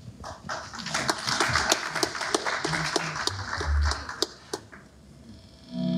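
Audience applauding in a hall, the clapping dying away after about four and a half seconds. Right at the end an electric guitar through its amplifier starts a held, distorted note.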